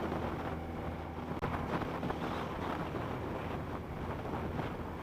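Motorcycle engine running at a steady cruise, with wind rushing over the microphone while riding.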